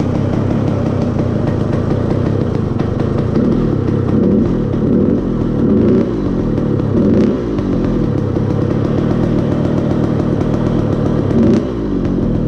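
Dirt bike engine idling, blipped with the throttle several times so the revs rise and fall briefly.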